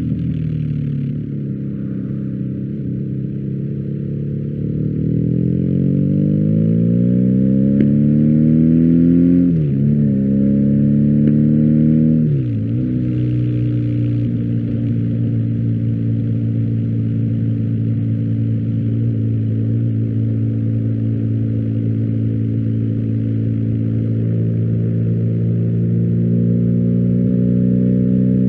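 BMW R1250GS boxer twin through an Akrapovič exhaust, ridden: the revs fall, then climb steadily, dip sharply twice in quick upshifts about ten and twelve seconds in, then hold steady at a cruise, climbing a little near the end.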